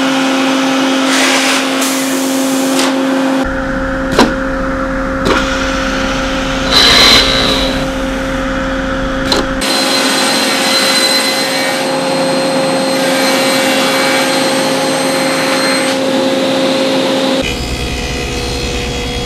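Woodworking shop machinery running in a series of short clips: a steady motor hum, broken by a few sharp knocks and a brief loud cutting noise about seven seconds in. The machine sound changes near the end as a table saw cut begins.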